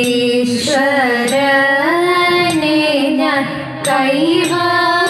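A female voice singing the slow, drawn-out melody of a Thiruvathira song in Carnatic style. The notes are long and held, with gliding turns between them, and the opening verse invokes Vighneshwara (Ganesha).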